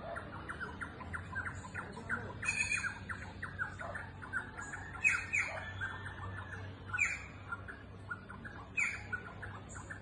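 A group of carriquíes (green jays) calling in a tree: a continuous rapid chatter of short notes, broken by loud harsh squawks about two and a half, five, seven and nine seconds in.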